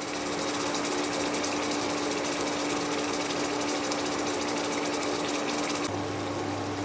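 Marinated chicken sizzling as it fries in a little oil in a kadai, being cooked down uncovered. A steady hum runs underneath, and a second, lower hum comes in about six seconds in.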